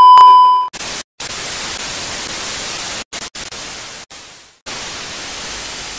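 A loud, steady beep tone for under a second, then the hiss of analog TV static, broken by several short dropouts. About four and a half seconds in, the hiss changes to a duller, steady hiss.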